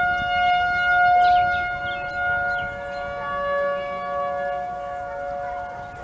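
Several outdoor tornado warning sirens, among them a Federal Signal Thunderbolt 1000 and a Federal Signal 2001, sounding their steady Alert tone together, heard as two close, steady, clashing pitches. A third, higher steady siren tone joins about three seconds in.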